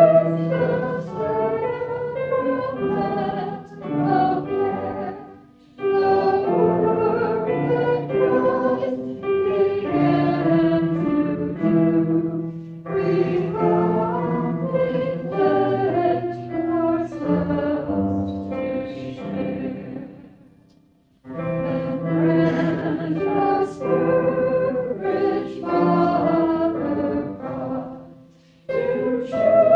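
A congregation singing a hymn together in phrases with held notes, pausing briefly between lines, with one near-silent break about twenty seconds in.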